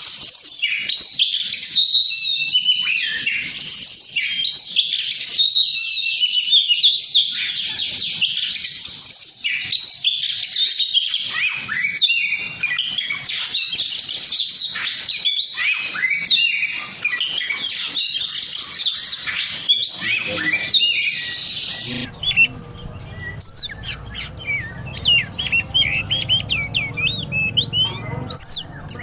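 Oriental magpie-robin singing without pause, a fast run of varied whistled phrases. About 22 seconds in the sound changes to quicker, higher chirps over a low hum.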